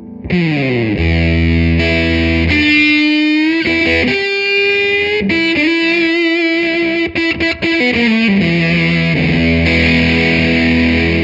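Electric guitar played through an Electro-Harmonix Big Muff fuzz pedal into a Fender Blues Deluxe Reissue tube amp with its stock speaker: a heavily fuzzed, long-sustaining lead with a sliding drop at the start and bent notes with vibrato.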